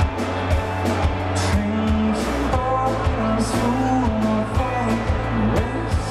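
Live rock band playing: electric guitar, bass and drums keeping a steady beat of about two hits a second, with a male voice singing over it.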